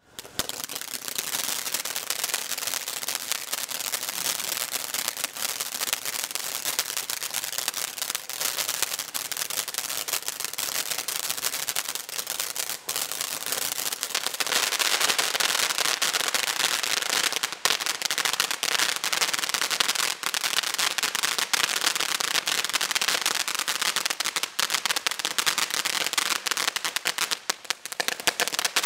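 Keystone Barn Burner ground fireworks fountain spraying sparks with a continuous hiss full of dense crackling. It starts abruptly and grows louder about halfway through.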